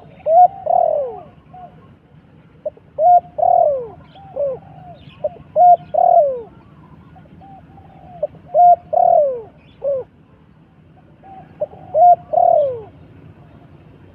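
A dove cooing: a phrase of two short notes and a longer falling coo, repeated about every three seconds, five times.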